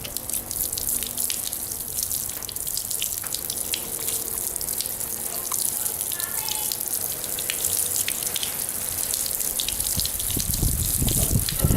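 Water splashing steadily onto a bicycle and its alarm padlock, simulating rain, with a dense patter of small drops. A low rumble joins in near the end.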